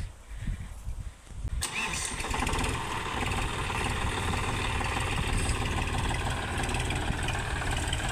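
John Deere 5050D tractor's three-cylinder diesel engine: a low rumble at first, then about a second and a half in a sudden step up to a steady running note as the tractor drives off across the field.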